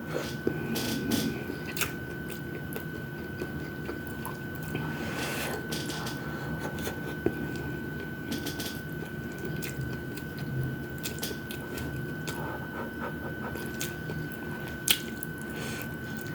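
Close-miked eating of fried chicken wings and rice: chewing and wet mouth sounds, with scattered light clicks, a sharper one about halfway through and another near the end.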